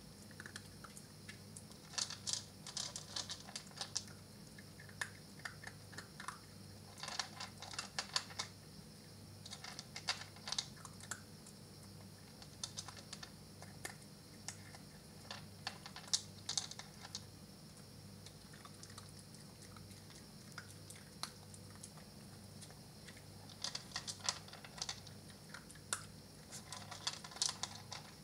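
Maltese puppy eating from a plastic bowl: quick runs of clicking and crunching as the food knocks against the bowl and is chewed, in spells of a second or two with short pauses between them.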